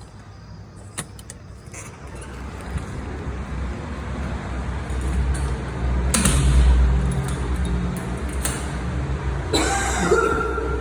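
Low rumble of a motor vehicle, growing louder toward the middle and then easing a little, with a brief higher sound near the end.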